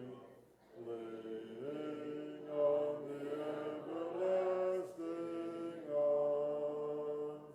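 A church congregation singing a hymn a cappella in slow, long held notes. The last chord ends near the end.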